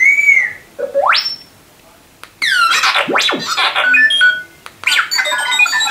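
R2-D2 beeps and whistles played through the replica droid's sound system: a short arching whistle, a fast rising sweep about a second in, then from about two and a half seconds a long run of warbling chirps and falling glides. This is the cheerful opening of its sound-effect sequence.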